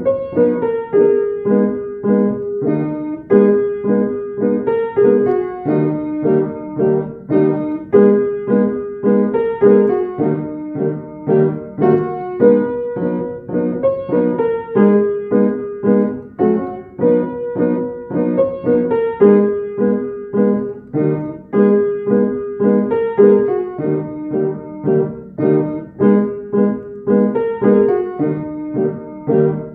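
Piano music playing a steady, repeating pattern of notes.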